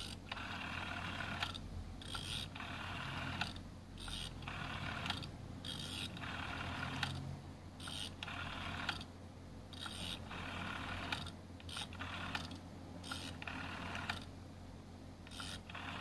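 Rotary telephone dial being pulled round and let go again and again as a phone number is dialed digit by digit. Each release sends the dial whirring back for about a second, with short pauses between digits.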